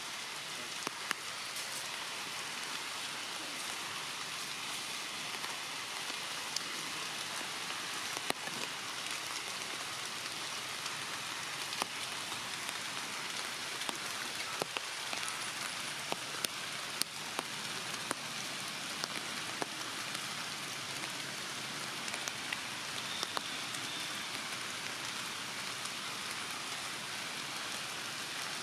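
Steady rain on forest leaves: an even hiss with many scattered sharp drip ticks.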